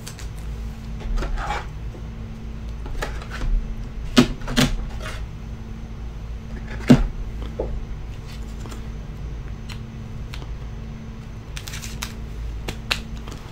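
Scattered light clicks and taps, about half a dozen spread out with a short cluster near the end, over a steady low electrical hum.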